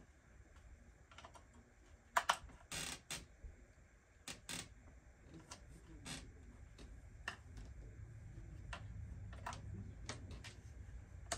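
Irregular clicks and taps of small hard plastic items being handled, with a brief rustle about three seconds in.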